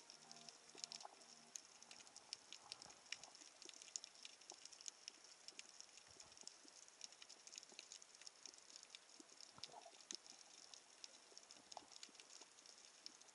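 Faint, irregular crackle of many small clicks heard underwater, with a few clicks a second standing out.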